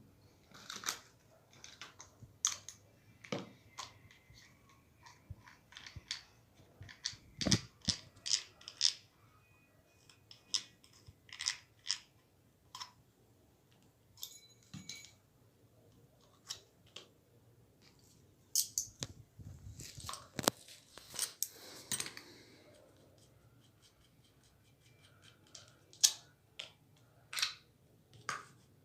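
Small clicks, taps and light clinks of a spinning fishing reel being taken apart by hand, its small parts knocking together. There is a short stretch of scraping about twenty seconds in.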